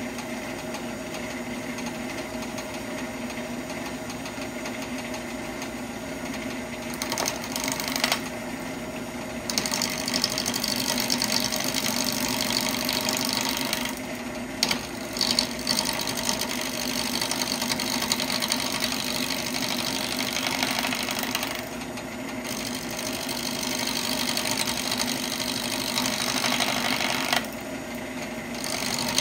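Wood lathe running with a steady hum while a bowl gouge cuts a glued-up hardwood blank, the cutting hiss starting about seven seconds in and coming and going in several passes, with a few sharper hits near the start of the cuts.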